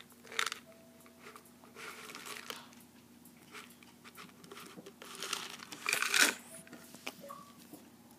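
Dry kibble rattling in a plastic canister and spilling into its plastic lid in a few short bursts, the loudest about six seconds in.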